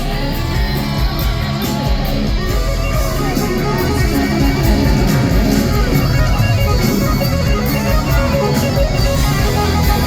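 Live rock band playing an instrumental passage: electric guitars over bass and drums, loud and steady.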